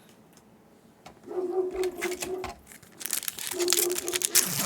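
Foil Yu-Gi-Oh booster pack being torn open and crinkled in the hands, a dense crackle from about three seconds in. A low steady tone comes and goes under it.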